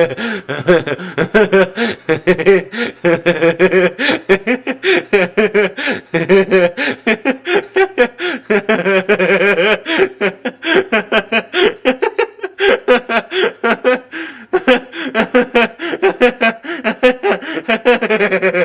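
A man laughing without a break, a fast run of short chuckles and snickers.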